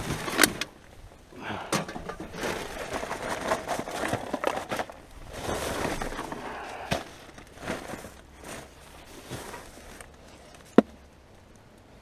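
Rummaging through rubbish in a dumpster: irregular rustling and crinkling with scattered knocks, and one sharp knock near the end.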